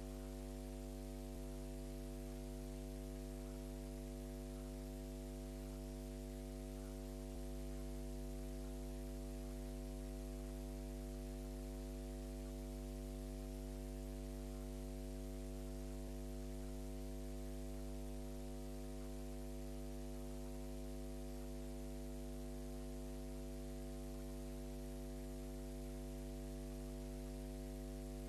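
Steady electrical mains hum, a buzz of evenly spaced tones over a constant hiss, with no game or crowd sound audible over it.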